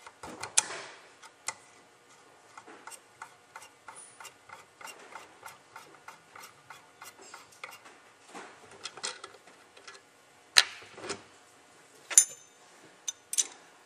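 Light, even ticking, about four ticks a second, as the fluid control knob is turned back onto an HVLP spray gun by hand, with a few sharper knocks of metal parts being handled on the bench about ten to thirteen seconds in.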